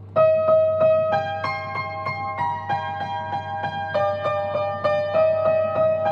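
Intro music: a piano-like keyboard tune of evenly repeated notes, starting about a fifth of a second in.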